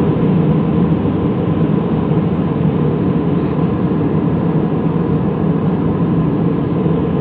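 Steady cabin noise of an airliner in flight: engine and airflow rumble, strongest in the low range, with a faint steady tone above it.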